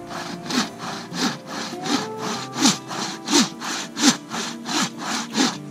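Wooden-frame bow saw cutting down lengthwise into the end of an upright log, with even back-and-forth rasping strokes about three a second: the slot cuts for a Swedish torch.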